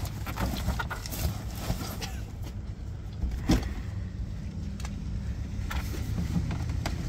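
Scattered clicks and knocks of things being shifted behind a pickup's tipped-forward seat, with one sharper knock about halfway through, over a steady low vehicle hum.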